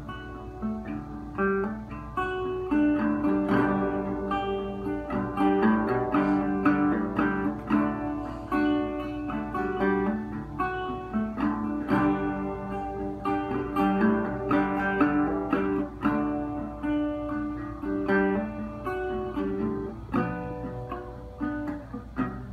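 National resonator guitar played solo: an instrumental passage of picked notes and strummed chords, with no singing.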